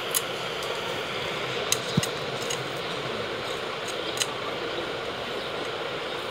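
Steady background hiss with a few light, sharp clicks and taps as macramé cord is worked around thin metal rings over a paper-covered mirror.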